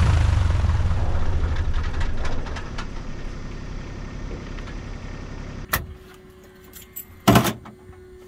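Piper Tomahawk's Lycoming O-235 engine shutting down: its running sound dies away over the first two or three seconds as the propeller stops. Then a sharp click, a faint steady hum, and a loud clunk in the cockpit near the end.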